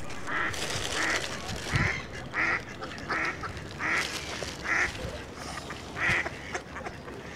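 A duck quacking over and over, a steady run of short, evenly spaced quacks about three every two seconds.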